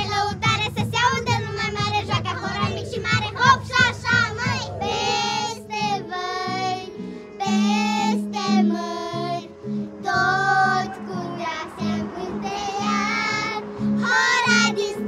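Young girls singing karaoke together over a backing track. Quick sung syllables for about the first five seconds, then longer held notes with a wavering pitch.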